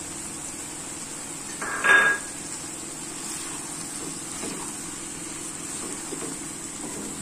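A single kitchen clatter about two seconds in, a utensil knocking against the nonstick pan with a short ring, followed by soft stirring of thick chicken masala with a silicone spatula.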